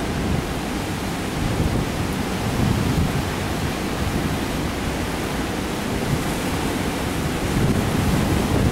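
Hurricane wind buffeting the microphone over heavy storm surf breaking on the beach. It is a steady rush of noise, deepest at the bottom, that swells in gusts a few times.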